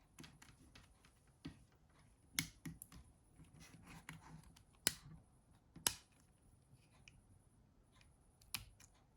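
Small plastic parts of a Nokia 6600 mobile phone being handled and fitted together as the display frame goes on: scattered faint taps and a few sharp clicks, the sharpest about five and six seconds in.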